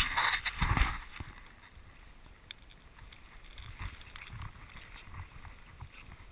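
Wind buffeting the microphone, loud for the first second, then a lower steady rumble with a few faint ticks.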